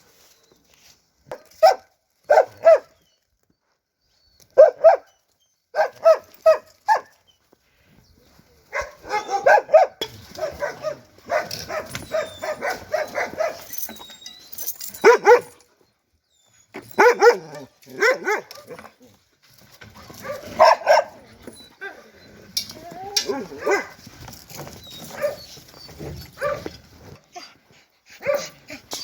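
Dogs barking: a few short, separate barks in the first seconds, then from about nine seconds in a denser run of overlapping barks that keeps going.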